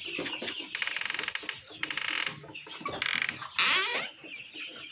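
A brood of young chickens peeping and chirping, with three short rasping bursts and a louder chirpy outburst about three and a half seconds in.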